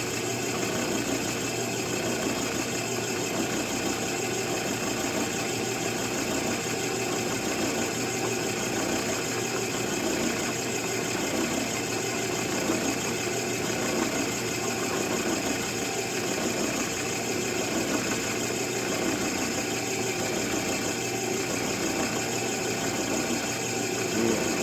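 Electric drill motor running steadily as it drills through a rifle stock.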